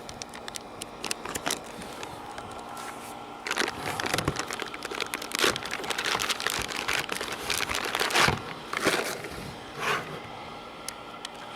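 Packaging being handled, crinkling and rustling in irregular bursts from about three seconds in, over a faint steady hum.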